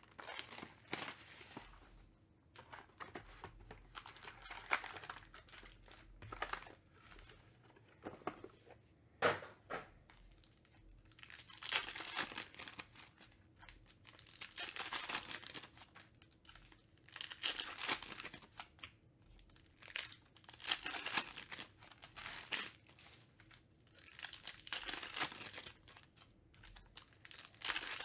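Foil trading-card pack wrappers being torn open and crinkled by hand. Lighter handling noises come first, then from about ten seconds in there are loud bursts of crinkling every two to three seconds.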